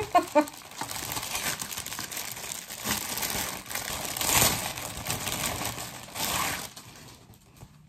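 Clear plastic wrapping crinkling as it is pulled off a canvas tote bag: a continuous crackling rustle that swells a little after the middle and dies away near the end.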